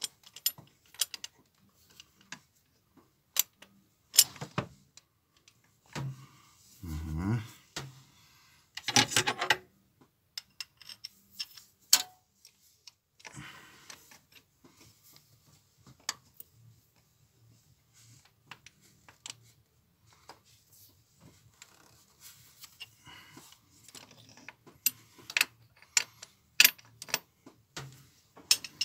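Scattered metallic clinks and taps of a wrench knocking against engine parts and fuel lines as it is worked into a tight spot on a diesel engine, with a few louder knocks and a brief low sound about seven seconds in.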